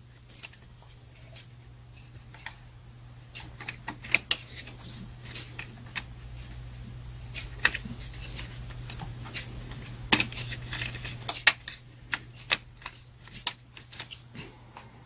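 Scattered clicks, taps and light rattles of plastic covers and parts being handled and lifted off a chainsaw during disassembly, over a steady low hum.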